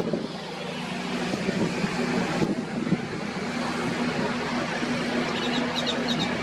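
A machine engine running steadily with a low hum, under wind and surf-like noise; a few short high chirps, like a bird calling, come near the end.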